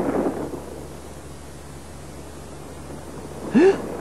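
Quiet, steady hiss of the soundtrack as a loud wavering cry dies away in the first half second. A short rising sound comes just before the end.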